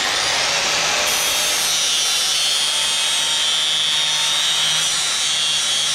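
Makita angle grinder running steadily while grinding a rounded corner onto a steel plate, a high whine over the grinding noise.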